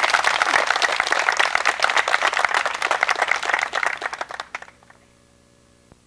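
Wedding guests applauding, a dense patter of many hands clapping that dies away about four and a half seconds in, leaving it nearly quiet.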